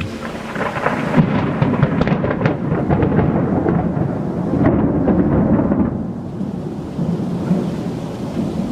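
Thunder rumbling and crackling, a long rolling peal that builds about a second in and dies down after about six seconds.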